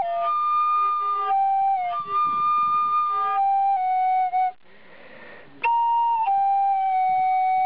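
Solo flute playing a slow melody of long held notes that step up and down in pitch, with a breathy pause of about a second midway.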